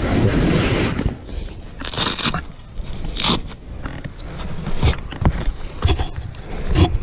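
Close-up handling noise on the camera's microphone: jacket fabric and hands scraping, crackling and knocking against it as the rider's helmet is being taken off, with several sharp knocks.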